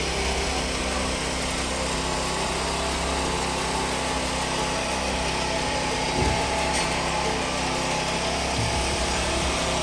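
Small portable generator engine running steadily at constant speed, a continuous low hum.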